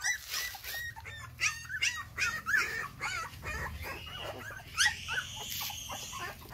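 Puppies whimpering and yelping in quick succession as they crowd at a food bowl, with one longer, drawn-out whine about five seconds in.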